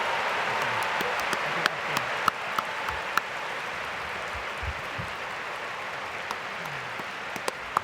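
Arena crowd applauding, the applause fading gradually, with scattered sharp clicks, more of them near the end.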